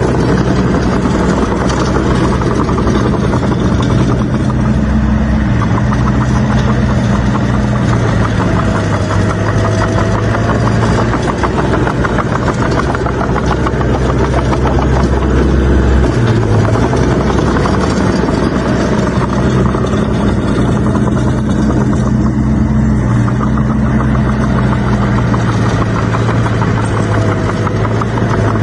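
Bulldozer's diesel engine running under load, its pitch stepping up and down several times as the load changes, with a steady mechanical clatter.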